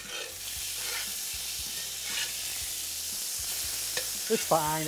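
Bacon sizzling steadily in a hot cast-iron skillet, growing louder a moment in as a fork lifts and turns the strips, with a faint scrape or two of the fork.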